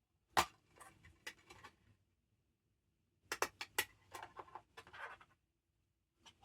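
Plastic DVD case being handled and opened: sharp plastic clicks with rustling, in a cluster near the start and another about three seconds in.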